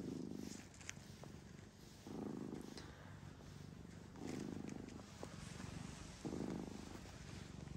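Domestic cat purring close up while being stroked, the purr coming in four slow swells about two seconds apart.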